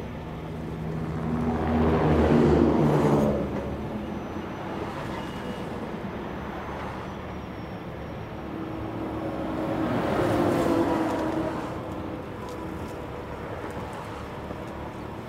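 Heavy-duty rotator wrecker's diesel engine running steadily as its boom holds and moves a suspended load, with two louder swells that rise and fade, about two seconds in and about ten seconds in.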